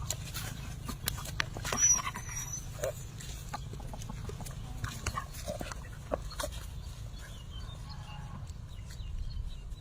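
Short animal yelps and grunts among scattered clicks and knocks, the loudest a little under two seconds in, over a steady low hum.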